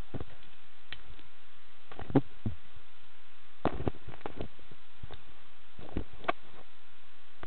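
Scattered clicks and knocks of EMU spacesuit hardware being handled and fastened during suit donning, the sharpest about two seconds in and a quick cluster near the middle, over a steady background hiss.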